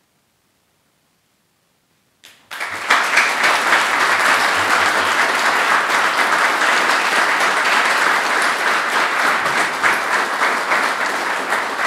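Audience applauding: after near silence, applause breaks out suddenly about two and a half seconds in and carries on steadily, easing slightly near the end.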